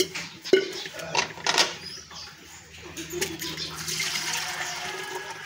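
Milk squirting from a cow's teats into a container during hand milking: a few separate hissing squirts, then a longer run of steady streaming near the end.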